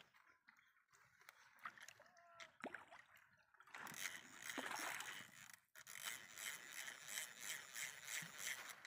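Faint sloshing and splashing of water, starting about four seconds in, as a hooked rohu fights at the surface while it is played in on a rod. A few soft ticks come before it.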